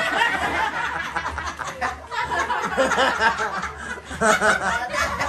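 Several people laughing and chuckling over overlapping, indistinct chatter.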